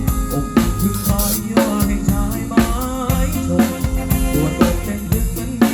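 Live band playing an instrumental passage, with no singing. A drum kit keeps a steady beat of bass drum, snare and rimshot strokes under sustained bass notes and a wavering melody line.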